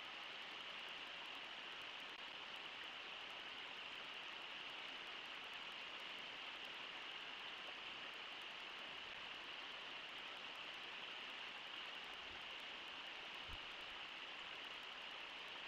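Steady rush of river water running over shallow riffles.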